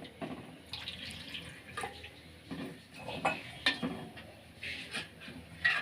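Water being added to cornflour in a bowl and mixed by hand, with scattered small splashes and clinks against the bowl.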